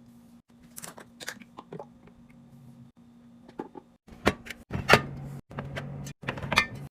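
Containers and groceries being handled and set down while restocking a fridge: a series of sharp clicks and knocks, louder and denser in the second half, over a low hum, broken by abrupt cuts.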